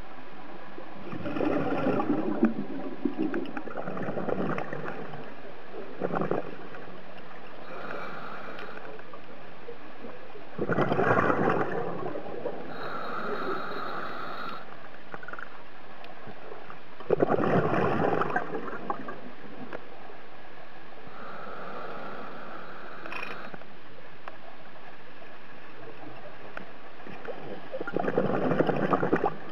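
Scuba diver's regulator breathing underwater: four loud rumbling bursts of exhaled bubbles, each a second or two long, with the thinner hiss of an inhaled breath between most of them.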